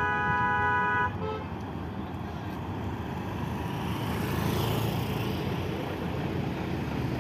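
A vehicle horn blares for about a second, followed by a short second toot, then steady road-traffic noise, which swells as a motor scooter passes close by about halfway through.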